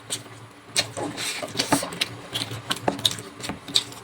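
Close-miked wet chewing and lip-smacking from someone eating chicken curry with rice: irregular smacks and clicks, several a second.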